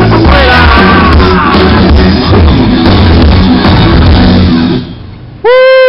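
Rock band playing loud through an outdoor PA; the song ends about five seconds in. Then a loud held high note rings out, falling in pitch as it ends.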